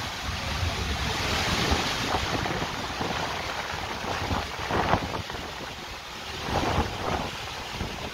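Heavy rain and strong, gusting wind of a thunderstorm, with the wind buffeting the microphone; the noise surges in gusts about five seconds in and again near seven seconds.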